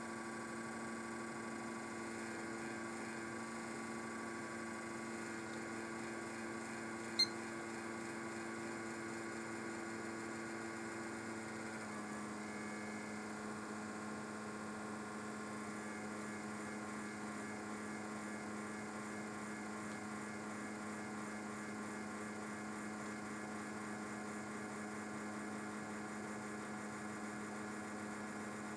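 Side-panel case fan of a home-built PC droning with a steady pitched hum: the worn-out fan is resonating, which the owner puts down to the end of its life. Its pitch shifts slightly about twelve seconds in, and there is a single sharp click about seven seconds in.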